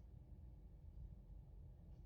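Near silence: a faint, steady low rumble of wood briquettes burning in a fireplace, with no crackles.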